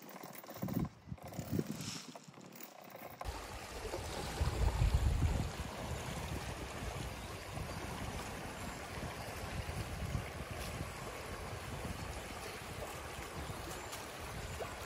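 Small forest stream rushing and gurgling steadily over shallows. It starts after a couple of seconds of a few brief creaks from a swing's chain, and a low rumble swells about four seconds in.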